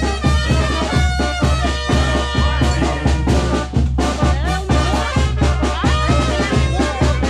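Live Mexican banda brass band playing: trumpets and trombones carry the melody over a steady, pulsing bass and drum beat.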